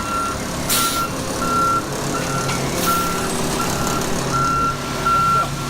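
Backup alarm of a ready-mix concrete truck beeping repeatedly as the truck reverses, over the rumble of its diesel engine, with a few short bursts of hiss.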